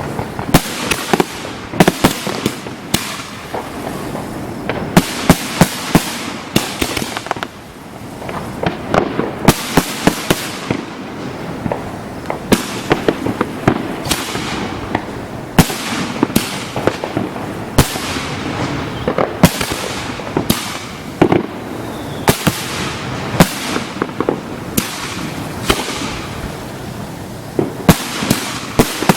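Fireworks display going off: a dense run of sharp bangs, often several a second in quick clusters, with no pause anywhere.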